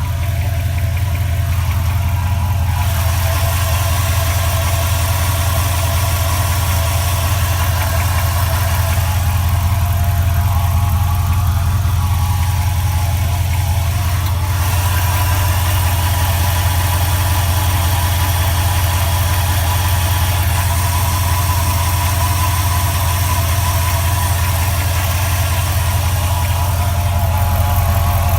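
A 4.7 HO V8 engine idling steadily, with a tapping sound from the bottom and rear of the engine. The owner asks whether it is an engine knock; it goes away once the engine reaches operating temperature.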